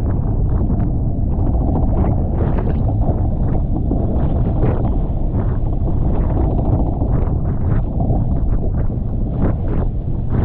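Strong wind buffeting the microphone over rushing water aboard a Tornado catamaran under sail, with frequent short splashes of spray.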